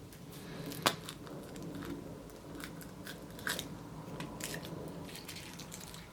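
Kinder Surprise egg and its plastic toy being handled and opened by hand: a string of small crackles and plastic clicks, the loudest a sharp snap about a second in.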